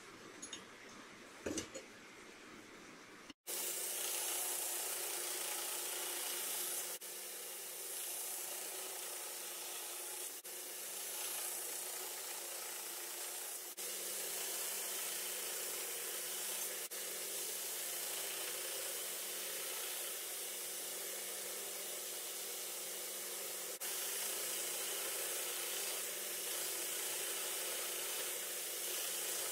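Steel cleaver blade being ground on a belt grinder: a steady hiss of the abrasive belt on the metal over the faint hum of the motor, starting about three seconds in. Before that, a few light handling clicks.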